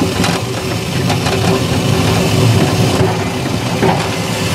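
A small one-foot gauge steam locomotive moving slowly under steam, a steady hiss of steam over a low rumble with a few light clicks.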